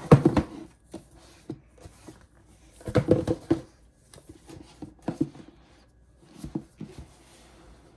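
Unboxed accessories and packaging being picked up and set down on a table: a knock as it begins, a cluster of rustling and knocks about three seconds in, then scattered light taps.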